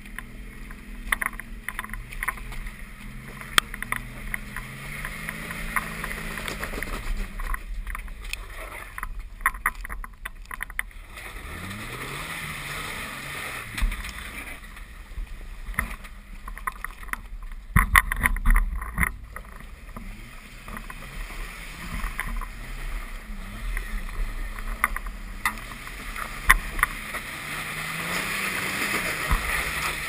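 A Jeep's engine revving up and down again and again as it crawls over rocks at low speed, with sharp knocks and scrapes from the tyres and underside on rock throughout.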